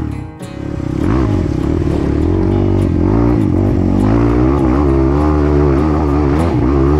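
Dirt bike engine running under the rider, its revs rising and falling repeatedly as the throttle is worked along the trail.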